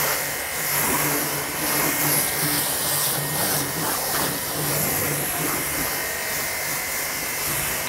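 Aimex D7 1800-watt electric high-pressure washer running under load, its motor and pump giving a steady hum beneath the hiss of the water jet spraying the car's bodywork.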